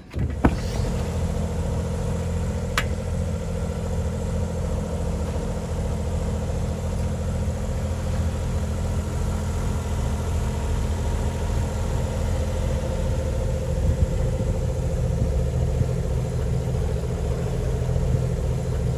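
Boat engine running steadily at one speed, with a short faint click about three seconds in.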